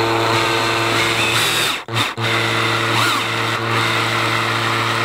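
Power drill spinning a plug cutter bit into the foam heel of a running shoe to cut out a core sample, with a steady motor hum. The hum cuts out briefly twice about two seconds in, then runs on steadily.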